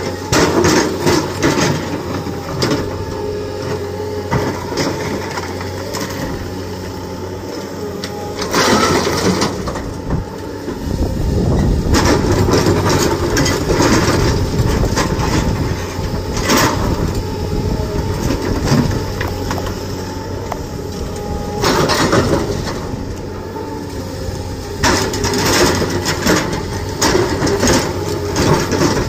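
Hydraulic rock breaker on an excavator arm hammering rock, rapid blows in bursts with short pauses, over the steady running of the excavators' diesel engines. The low engine sound grows louder about eleven seconds in.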